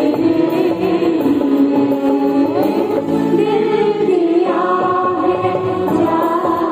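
Mixed choir of women and men singing a slow song in long held notes, sung into microphones.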